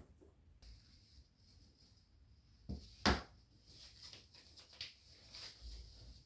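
A few soft knocks and clatters of household objects being handled. The loudest are two knocks close together about three seconds in, over a faint high hiss and light rustling.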